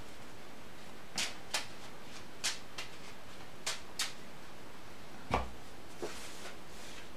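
Magic: The Gathering cards being handled at a table: a string of light, sharp clicks and taps, then a single heavier thud about five seconds in as a deck box is set down on the table.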